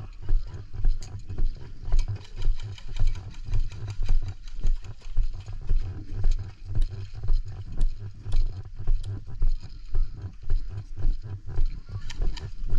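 A player running in airsoft gear: heavy footfalls jolting the body-worn microphone about twice a second, with his loadout rattling on each stride, likely including the BB rattle of high-capacity magazines.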